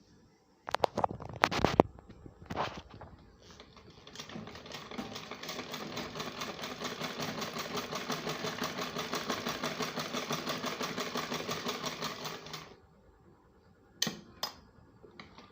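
Sewing machine running a test seam after its upper-thread tension spring has been tightened: a fast, even clatter of needle strokes that builds up about four seconds in, runs steadily for about eight seconds and stops abruptly. A few sharp knocks come before it, the loudest sounds here, and two clicks follow near the end.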